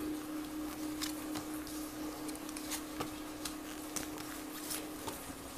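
Cards being dealt one by one onto a cloth-covered table: faint, scattered soft taps and rustles of card on card and cloth. A faint steady hum sits underneath and stops about five seconds in.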